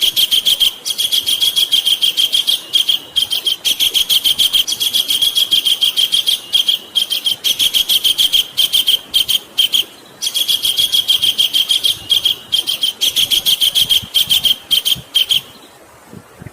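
Javan kingfisher calling: a loud, rapid run of repeated high notes, with a short break about ten seconds in, stopping about a second before the end.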